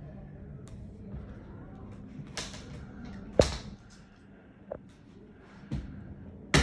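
Indoor shop room tone with a steady low hum, broken by a few sharp knocks and clacks of handled objects, the loudest about three and a half seconds in.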